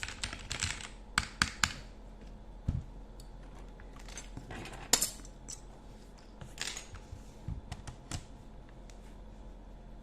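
Mechanical keyboard keys being pressed, an RK G68 fitted with linear switches: scattered, irregular keystrokes and short clusters of clacks rather than continuous typing, a few of them louder and sharper.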